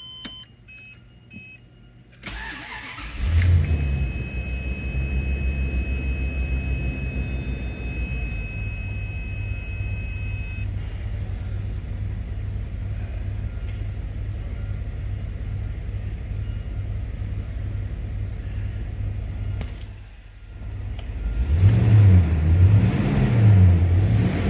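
Dashboard chimes as the ignition comes on, then the 2001 Rolls-Royce Corniche V's 6.75-litre turbocharged V8 cranks and catches about three seconds in on a cold start, flaring briefly before settling into a steady idle with a thin high whine for several seconds. Near the end the engine is revved twice.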